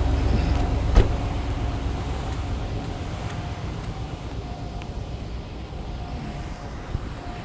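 1992 Cadillac DeVille's 4.9-litre V8 idling steadily in the rain, with one sharp knock about a second in.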